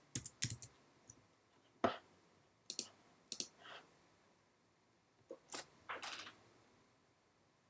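Computer mouse and keyboard clicks, a dozen or so faint, irregularly spaced clicks, some in quick pairs and small clusters.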